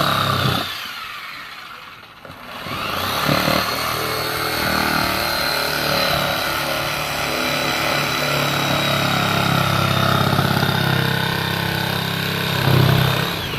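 An electric motor whining: switched on briefly and spinning down, then started again and held running for about ten seconds, with a deeper rumble under it that swells near the end before it cuts off.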